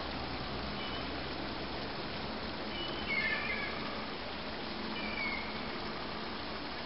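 Gulls calling: two short, high calls, about three seconds in and again about five seconds in, over a steady background hiss.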